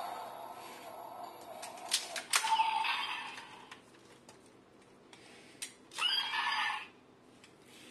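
Ultraman Trigger GUTS Sparklence transformation toy playing its electronic sound effects through its small speaker, set off by the Dark Trigger key. Sharp plastic clicks come about two seconds in, again just after, and near six seconds, each followed by a short burst of sound effects.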